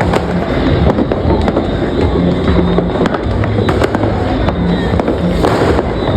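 Firecrackers and fireworks going off nonstop: many overlapping bangs and pops, with a louder burst of crackling near the end. Music plays underneath.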